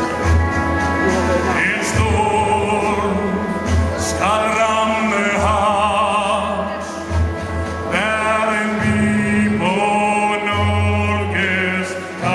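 A male singer in an operatic style holds long notes with a wavering vibrato, backed by orchestral accompaniment with a steady low beat.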